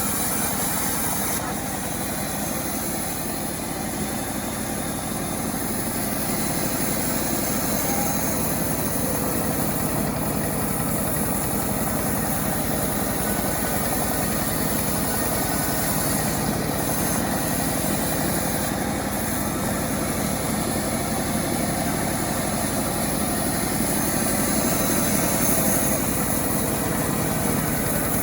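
Self-assembled chainsaw's small engine running steadily at a constant, loud level.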